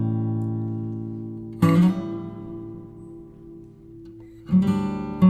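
Background music on acoustic guitar: strummed chords left to ring and fade, with a new chord struck about every three seconds.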